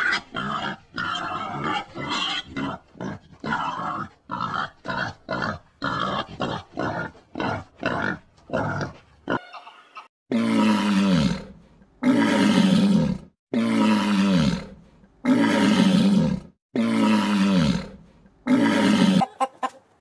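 A wild boar grunting in quick short calls, about three a second. About halfway through, a lion takes over with six long roaring calls, each falling in pitch, about a second and a half apart.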